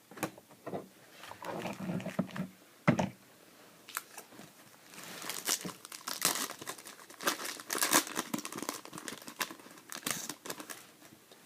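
A trading-card pack's foil wrapper crinkling and tearing open, with the cards handled. The crinkling grows denser and louder about halfway through.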